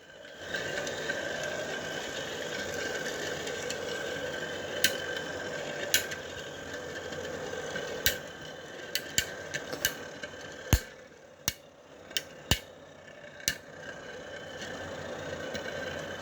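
Metal Beyblade spinning tops, L Drago Destructor and Cosmic Pegasus, whirring steadily as they spin in a battle stadium, with sharp clacks as they strike each other, a few at first and then in quick succession about ten to thirteen seconds in.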